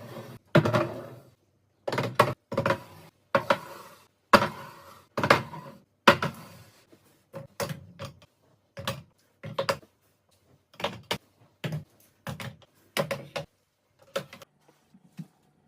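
Items being handled and set down while a fridge is restocked: a string of sharp knocks and clatters, some with a brief ring, coming more sparsely toward the end.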